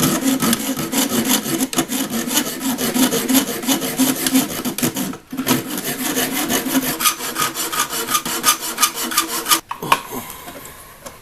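Hand hacksaw cutting through a small metal piece with quick back-and-forth strokes and a faint ringing of the metal. The sawing stops briefly about five seconds in and again near the end.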